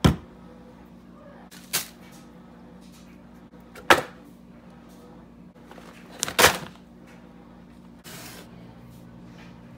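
Kitchen supplies (a plastic spray bottle, a box of foil, a packaged roast) set down one after another on a countertop. There are sharp knocks at the start, about two, four and six seconds in, with a brief rustle about eight seconds in and a steady low hum underneath.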